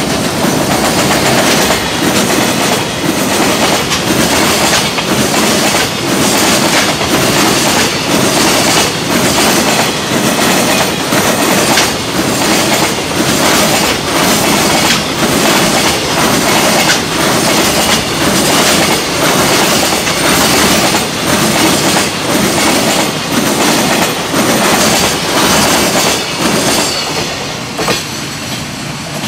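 A long freight train passing close by at speed: a loud, steady rush of wheels on rail with a regular clatter about once a second as the wagons' wheels cross the rail joints. It dies down near the end.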